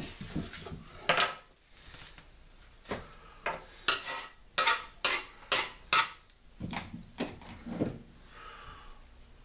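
Knife and dishes clinking and clacking in a kitchen: about a dozen sharp knocks, unevenly spaced, over several seconds.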